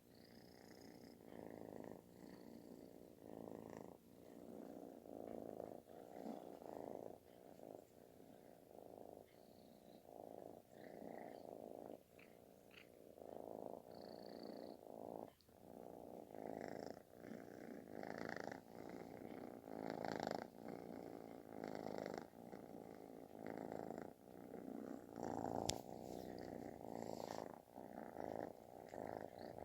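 Calico kitten purring loudly with a snore-like rasp, swelling and fading about once a second.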